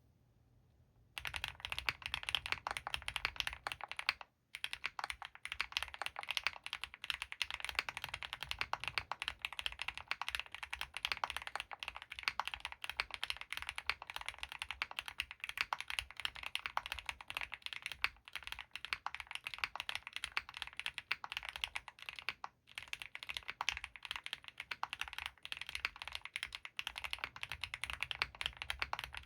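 Continuous typing on a mechanical keyboard: an Owlab Mr.Suit with lubed Gateron CJ linear switches on a polycarbonate plate, under GMK ABS keycaps. It is a fast, dense run of key clacks that starts about a second in and stops twice, very briefly.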